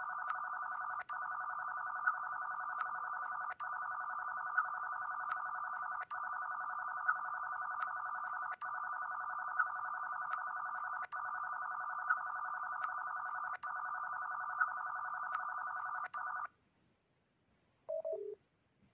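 Star Trek LCARS-style computer panel sound effect: a steady electronic hum of several blended tones with light ticks, looping with a brief gap about every two and a half seconds. It stops a little before the end and is followed by a short two-note falling computer beep.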